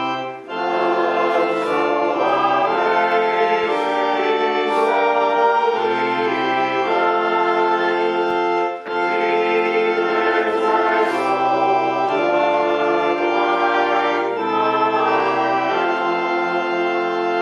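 Church organ playing slow, sustained chords that change about once a second, with two brief breaks between phrases, about half a second in and again near the middle.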